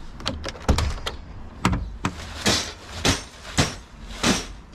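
Footsteps on gravel, about two a second, after a few sharp knocks in the first second.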